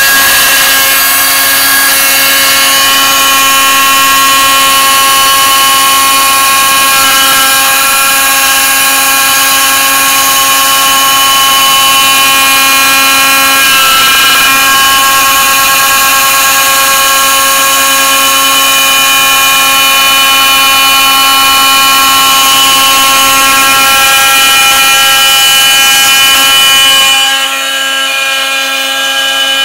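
Proxxon MF 70 mini milling machine running under CNC control, its small spindle motor whining steadily at several pitches while the end mill cuts the thin aluminium wall of a beer can. The sound turns quieter about 27 seconds in but keeps running.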